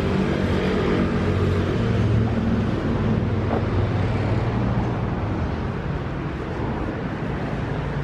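Street traffic: a motor vehicle's engine running close by, loudest about two seconds in and slowly fading.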